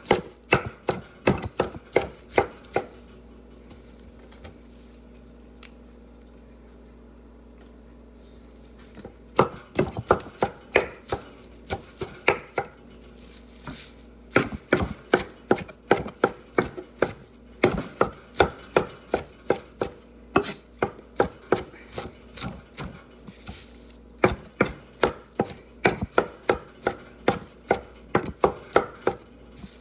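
Knife chopping fresh mint, parsley and mushrooms on a wooden cutting board in quick, even strokes, about three a second. The chopping stops for about six seconds after the first three seconds, then starts again and carries on with short breaks.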